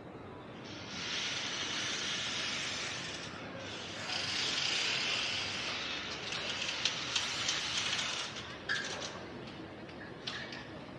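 A loud hiss in two long stretches, the second longer than the first, followed by a few sharp clicks and two brief high tones.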